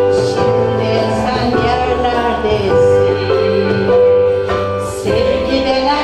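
Turkish art music ensemble with violin playing a song in makam Rast, with a female soloist singing over it.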